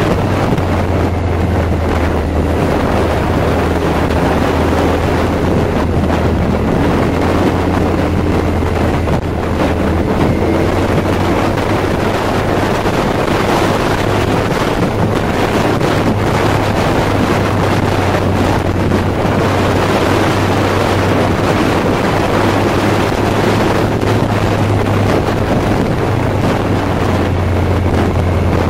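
Heavy wind rush on the microphone of a moving motorcycle, over the steady low hum of the Kawasaki Z1000's inline-four engine, its pitch rising and falling a little through the bends.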